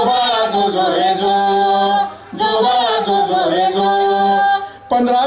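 Voice singing the refrain of a Marathi palna (cradle song): two long held phrases with slight glides in pitch, parted by a short break about two seconds in.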